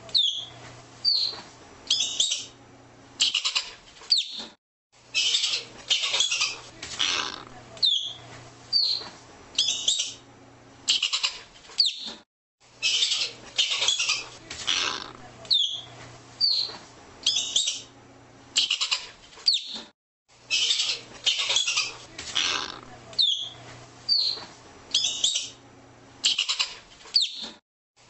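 Arctic ground squirrel calling: a steady series of short, harsh chirps, roughly two a second, with brief gaps every several seconds.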